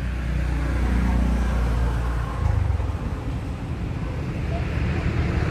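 A motor vehicle engine running steadily with a low rumble that shifts pitch about two and a half seconds in.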